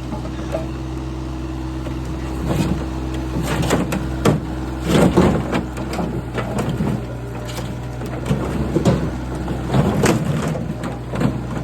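A machine's engine running steadily while the pool stairs are broken and pulled out, with irregular crunching and cracking knocks, the loudest cluster about five seconds in.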